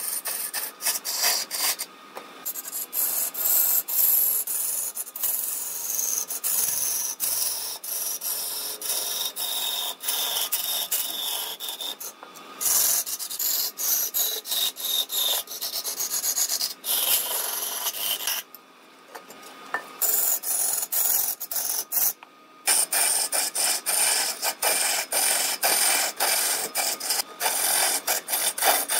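Chisel cutting into a large wooden column spinning on a wood lathe: a steady high scraping hiss full of rapid ticks as chips fly off. The cut breaks off briefly several times, longest for about a second and a half about two-thirds of the way through.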